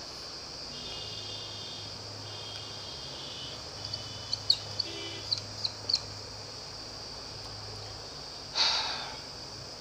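Dry-erase marker squeaking on a whiteboard as a date and an arrow are written: a quick run of about eight short squeaks over two seconds, over a steady faint hiss and hum. A short burst of noise follows near the end.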